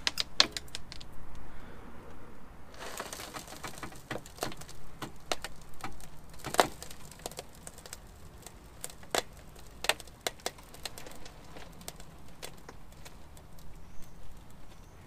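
Irregular sharp clicks and cracks, with a short crunching stretch about three seconds in, as a van's wheel settles its full weight onto an LED work light resting on a laminate floor board.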